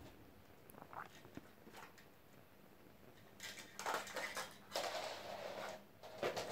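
Rustling and scuffling of a cat at play with a string toy on a rug: quiet at first, then several loud scraping, rustling bursts from about halfway in.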